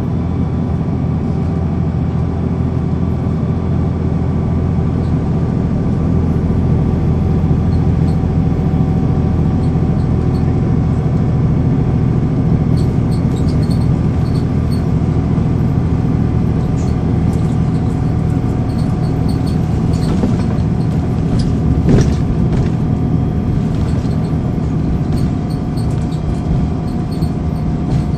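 Cummins ISL9 straight-six diesel engine of a 2009 NABI 416 transit bus running steadily, heard from inside the bus: a low drone with a few steady higher tones over it. A single sharp knock about 22 seconds in.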